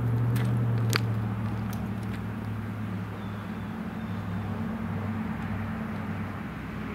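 A steady engine drone, a low even hum that is loudest at first and eases off slightly, with one sharp click about a second in.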